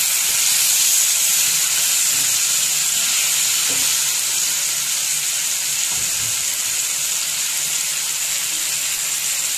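Yogurt-marinated chicken pieces sizzling steadily in hot oil in a non-stick frying pan, with a wooden spatula pushing and turning them in the first few seconds.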